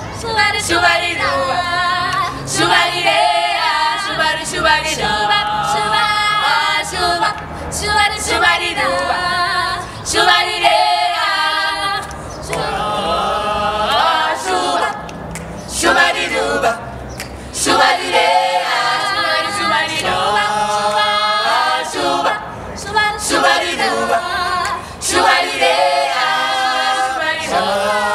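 A small choir of young voices singing a cappella in harmony, in phrases with short breaks between them.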